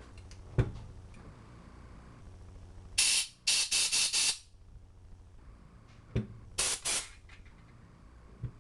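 Compressed air blown in short bursts through carburetor parts: one hiss about three seconds in, then a quick stutter of bursts, and another cluster of bursts around seven seconds. There is a sharp knock about half a second in and another just after six seconds.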